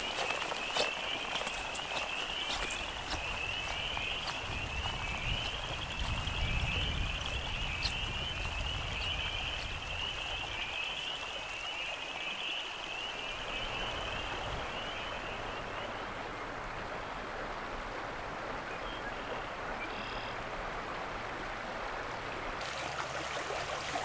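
A chorus of frogs trilling steadily over the steady rush of a small creek. The frog chorus fades out about two-thirds of the way through, leaving the creek.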